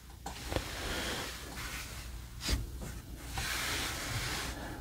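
Hard plastic toy parts handled and fitted together: a faint rubbing hiss with light clicks about half a second in and again about halfway, as a small arm-blaster accessory is worked onto a transformable robot figure's arm.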